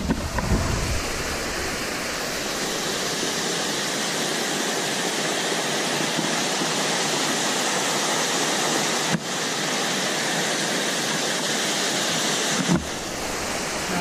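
Steady rush of a mountain waterfall and stream cascading over boulders, with two brief breaks in the sound near the end.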